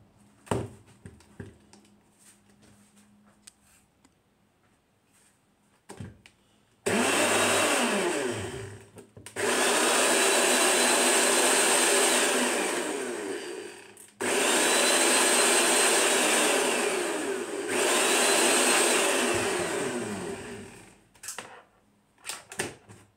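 Small electric kitchen chopper-grinder run in about four loud pulses with short breaks between them, its motor whine rising in pitch as it spins up and dropping away as it stops. A few light handling clicks come before it starts.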